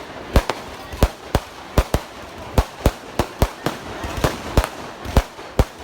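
Festival firecrackers going off in an irregular string of sharp, loud cracks, about three a second.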